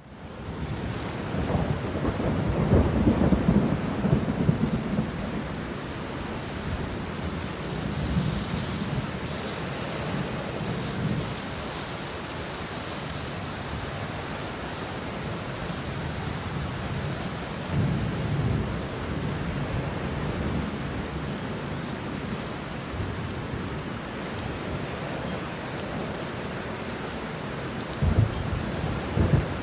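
Steady hiss of pouring rain, with low rumbles that swell and fade: loudest a couple of seconds in, again about two-thirds of the way through, and once more near the end.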